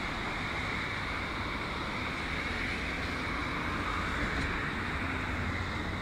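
Steady road traffic noise from cars passing on a multi-lane road.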